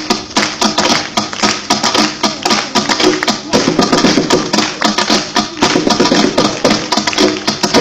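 Music with a busy, fast tapping percussion beat over sustained pitched notes.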